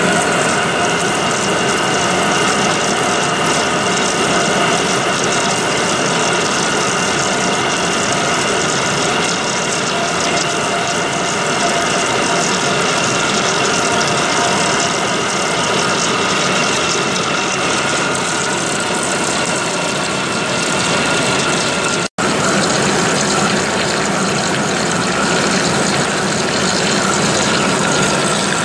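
Large lathe turning a steel bar while a trepanning tool cuts a deep bore, with coolant pouring over the cut: a steady machine running sound with a faint steady whine over an even rush of flowing coolant. It drops out for an instant about three-quarters of the way through, then carries on unchanged.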